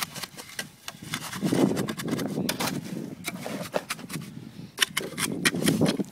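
A spade and a mason's trowel working wet concrete around a post: jabbing and scraping of metal blades in wet concrete, with many sharp clicks and knocks. Denser scraping comes about a second and a half in and again near the end.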